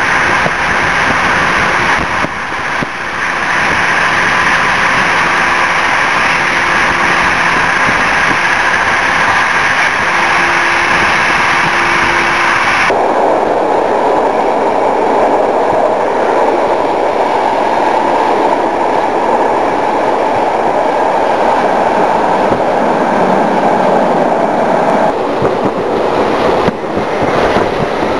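A passenger train running on the rails, heard from inside the carriage as a steady rush and rumble of wheels and air. The sound changes abruptly about halfway through and again near the end, where one clip cuts to the next.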